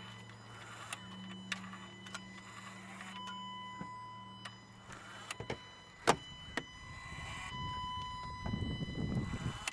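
The swirl control actuator on a 2010 Kia Sorento's 2.2L diesel buzzing steadily after the key is turned off, cutting out about five seconds in. This is the unwanted after-shutdown buzz that runs for about 20 seconds. Clicks follow, one sharp, with some rustling near the end.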